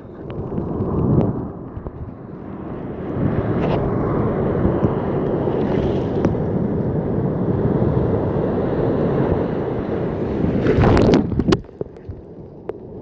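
Ocean surf: whitewater rushing around the phone as waves wash through, with wind buffeting the microphone. The rush builds about a second in, holds steady, surges once more and then drops off sharply near the end.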